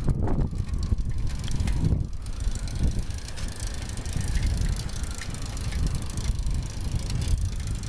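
Wind buffeting the microphone and tyre and road noise from a bicycle riding along a city street, with scattered small rattles and clicks.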